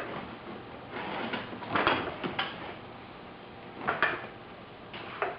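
Loose car parts being handled and set down: a handful of separate knocks and clunks, the strongest about two seconds in and again about four seconds in.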